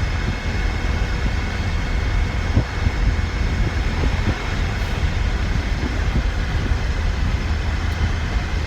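Steady in-cab driving noise of a Ford Ranger pickup at highway speed: a low rumble of drivetrain and tyres with wind noise coming in through the missing rear window.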